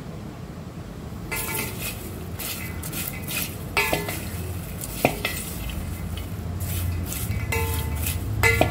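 A spoon stirring popped popcorn in a metal pot, mixing in the masala seasoning: repeated scraping and clinking against the pot, several strikes ringing briefly. It starts about a second in.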